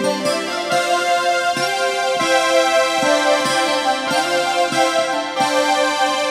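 Background music led by electric piano or synthesizer keyboard, held chords with a steady rhythmic pulse.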